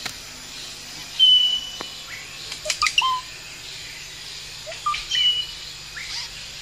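Forest birds singing: a clear, slightly falling whistled note of about half a second, repeated twice some four seconds apart, with shorter chirps and sliding notes between, over a steady quiet background. A single sharp knock at the very start.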